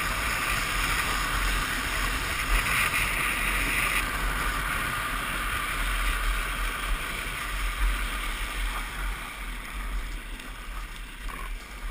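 Wind buffeting a helmet-mounted camera's microphone over the steady rumble and hiss of drift trike wheels rolling fast down asphalt, easing off near the end.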